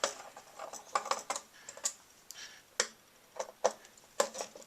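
Irregular small clicks and ticks of a hand tool working screws out of the metal SGI Octane processor module, about a dozen in a few seconds.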